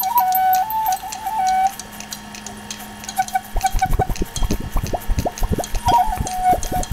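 Background music: a high, flute-like melody stepping between a few notes, then, from about three and a half seconds in, rapid water-like bubbling or dripping sounds, with the melody coming back briefly near the end.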